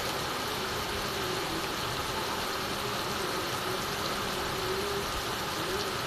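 Heavy rain falling steadily on a clay-tile roof and streaming off the eaves onto the wet ground, an even, unbroken hiss.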